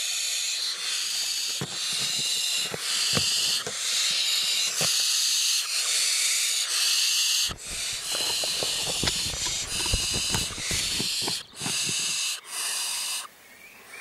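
Barn owl chicks in the nest making repeated rasping hisses, the snoring food-begging call of barn owl nestlings. The hisses come roughly once a second, each under a second long, with scattered soft clicks between them, and stop about a second before the end.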